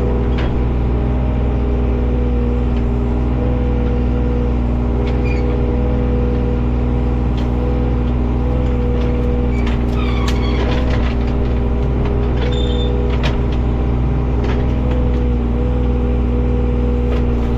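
John Deere 35G mini excavator's diesel engine running steadily at working speed, with a few short knocks and clanks about two-thirds of the way through as the machine works debris.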